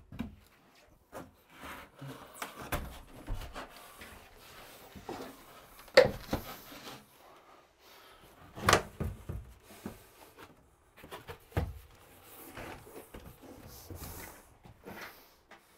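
Knocks, scrapes and rubbing as a Dreamline Slimline shower base is lowered onto a mortar bed and pressed into place, with a sharp knock about six seconds in and another near nine seconds.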